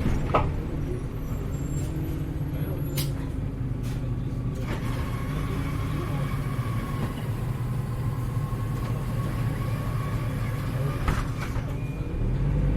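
Heuliez GX317 LPG city bus heard from inside the cabin: a steady low engine drone with a few sharp knocks and rattles, and a thin steady whine through the middle. The engine grows louder near the end.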